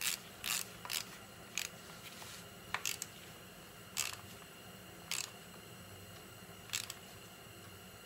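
Ratchet wrench clicking in short bursts as it is swung back between strokes while tightening a 10 mm fork pinch bolt. The bursts come about twice a second at first, then spread out to one every second or so.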